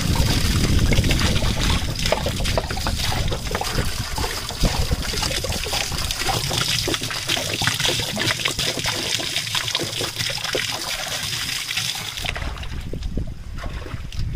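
A stream of water pouring and splashing onto a whole skinned buffalo carcass in a large metal pot, rinsing off its blood and dirt. The splashing cuts off about twelve seconds in, leaving a quieter, lower sound.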